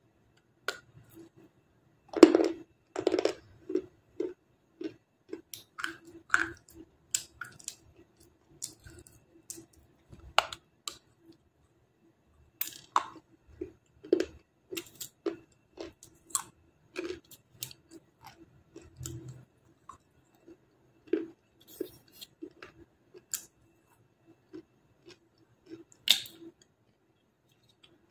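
Biting and chewing a dry, brittle slab of 'black star' edible clay, with crisp, irregular crunches throughout. The loudest bites come about two seconds in and again near the end.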